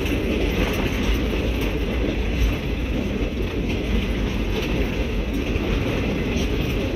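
Passenger train running along the track, heard from aboard: a steady rumble of wheels on rail with no let-up.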